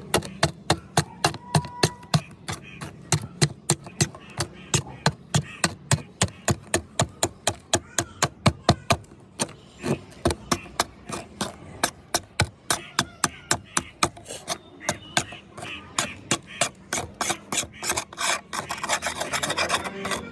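A knife blade being worked by hand with rapid, even scraping strokes, about four a second, each stroke short and sharp.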